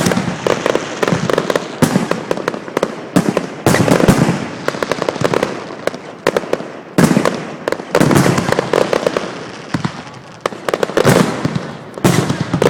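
Aerial fireworks bursting in a display: about five loud bangs a few seconds apart, each followed by a spell of rapid crackling.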